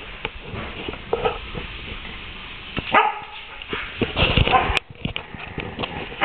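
A Samoyed yowling in several short bursts spread over a few seconds.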